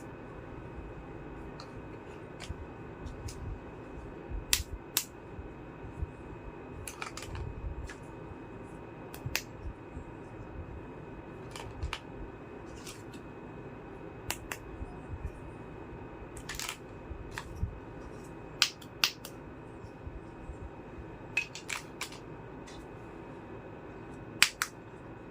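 Tiny plastic toy kitchen pieces being handled and unpacked: irregular light clicks and taps, a few at a time with pauses between, over a steady background hiss.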